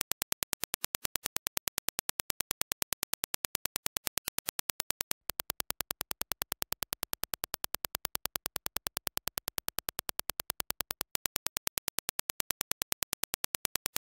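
Dirac impulse test signal: a rapid, even train of sharp clicks. About five seconds in, the reference impulses give way to the same clicks as reproduced by Grado SR60X open-back headphones and recorded, and near eleven seconds they switch back to the reference clicks.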